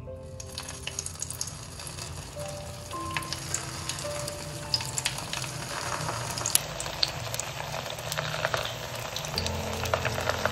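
Potato patties (aloo tikki) sizzling and crackling as they are laid one after another into shallow hot oil in a frying pan. The sizzle starts about half a second in, and the popping grows denser over the last few seconds as more patties go in.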